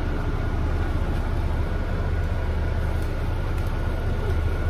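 Interior of a moving shuttle bus: a steady low engine and road rumble with a thin, constant whine above it.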